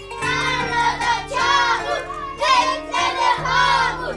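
Children singing, in short phrases over a musical backing with held low notes.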